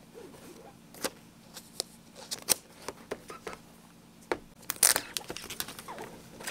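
An irregular run of sharp clicks and crinkling rustles, loudest in a cluster about five seconds in.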